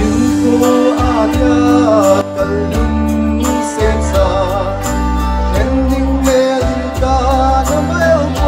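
A man singing a song into a microphone over amplified backing music with a steady bass line and a regular drum beat.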